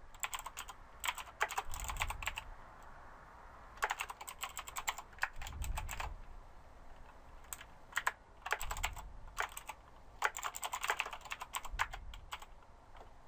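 Typing on a computer keyboard in irregular bursts of quick keystrokes with short pauses between them.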